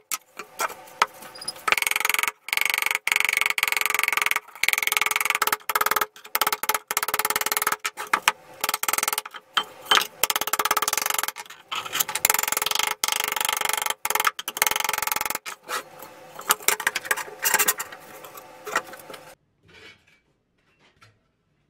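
Small hammer tapping rapidly on a steel helmet shell against a small anvil, straightening out dents, with many quick metallic strikes that ring. The hammering stops near the end.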